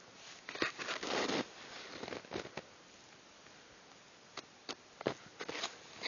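Snowshoe steps crunching in snow, irregular crunches and rustles close to the microphone: a cluster in the first half, about two seconds of quiet, then a few more near the end.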